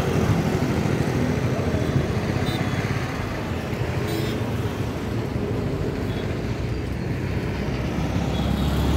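Road traffic noise: motorcycles, scooters and cars running and passing at a city road junction.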